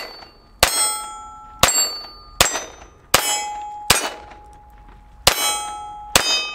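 Ruger LCP II .22 LR pistol fired seven times, about one shot a second. Each shot is followed by the clear ring of a steel target being hit, fading before the next shot.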